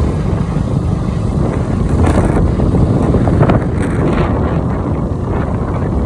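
Wind buffeting the phone's microphone while travelling along a street: a steady, dense low rumble with no clear engine note.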